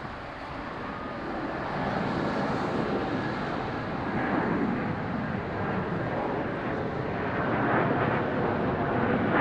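Jet airliner engines running, a steady roar that grows louder through the whole stretch as the plane comes nearer.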